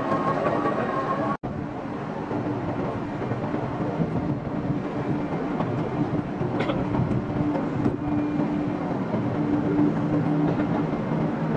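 Panama Canal electric towing locomotive (mule) running along its rail track beside the lock: a steady mechanical hum with a held low tone. The sound drops out briefly just over a second in.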